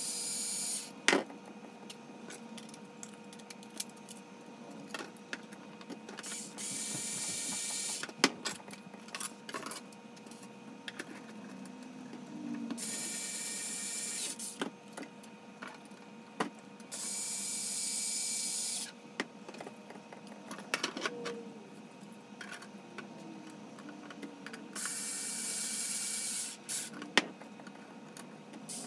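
Small cordless electric screwdriver driving M3 socket-head screws into 3D-printed PLA planks in four short runs of a second or two each. Between runs, plastic parts and screws click and knock as they are handled.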